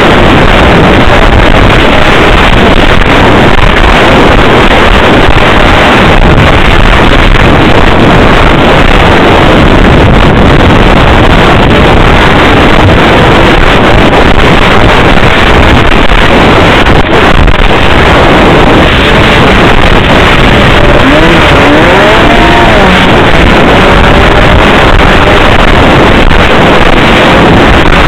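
Snowmobile engine running at speed on the trail, loud enough to overload the recording, mixed with rushing wind noise. About two-thirds of the way through, the engine pitch dips and rises again as the throttle is eased and reopened.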